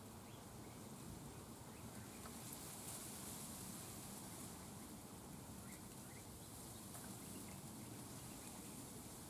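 Faint outdoor background: a steady high hiss, with a few very faint short high sounds about six seconds in.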